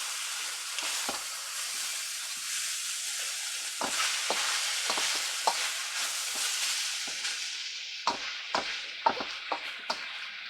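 Kimchi fried rice of leftover brown rice sizzling in a frying pan while it is stirred, with the spatula knocking and scraping against the pan, more often in the second half.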